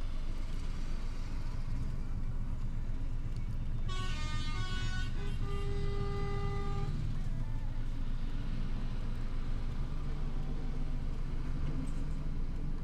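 Heavy trucks in a passing convoy, with a steady rumble of diesel engines. About four seconds in, a truck's multi-tone air horn sounds for about three seconds, stepping through a few pitches before holding one chord.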